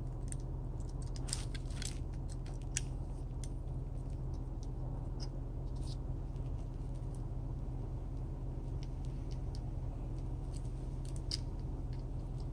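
Light scattered clicks and taps of small diecast toy car parts being handled and fitted together by hand, over a steady low hum.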